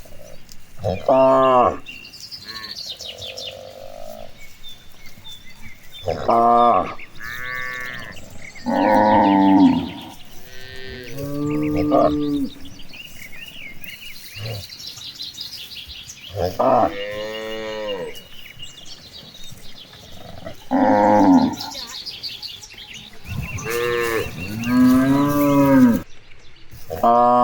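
Cattle mooing over and over, about ten calls, each a second or two long, several rising then falling in pitch, some overlapping near the end.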